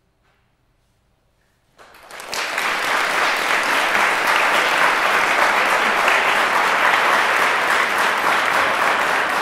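Audience applauding, breaking out suddenly about two seconds in after a near-silent pause and holding steady.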